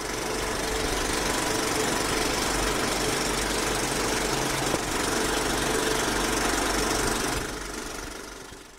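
A steady, engine-like mechanical drone with a faint hum, fading out near the end.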